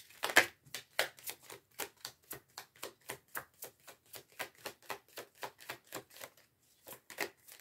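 A deck of oracle cards being shuffled by hand: a run of quick light card clicks, about four or five a second, with a short pause near the end.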